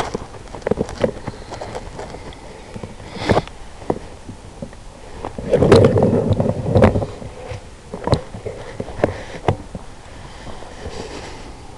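Handling noise of a rifle with a mounted thermal scope as it is moved: scattered clicks and knocks, with a louder stretch of rubbing and bumping about halfway through.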